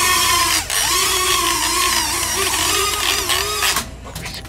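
Air Hogs mini quadcopter drone's propellers whirring on takeoff, the motor whine wavering up and down in pitch with the throttle. The motors drop out for an instant less than a second in, spin up again, and stop shortly before the end: an unsteady takeoff.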